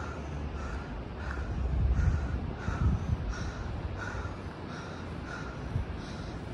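A crow cawing over and over, about one and a half caws a second, over a low rumble that swells about two seconds in.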